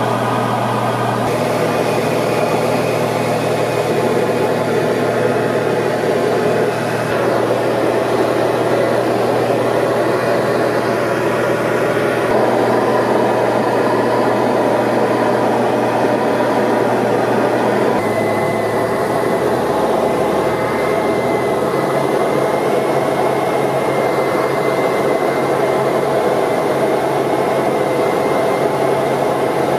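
Cabin drone of a Diamond DA40 single-engine light aircraft in cruise: steady piston-engine and propeller hum mixed with airflow noise, heard inside the cockpit. The engine tone steps down slightly a couple of times, in the second half.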